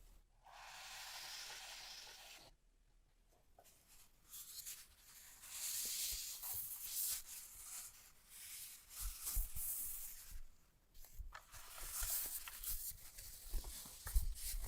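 Packaging being handled and opened during a keyboard unboxing: a steady rasp lasting about two seconds near the start, then irregular rustling and scraping with light knocks.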